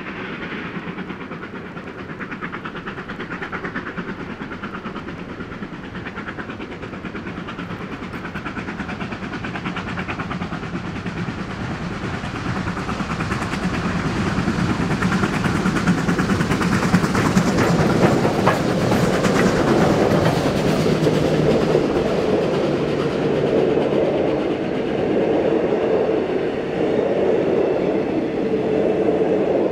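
A pair of R class Hudson steam locomotives working a train toward the listener, their exhaust beats growing louder until they pass about two thirds of the way in. The carriages then roll by with a steady rumble and wheels clicking over the rail joints.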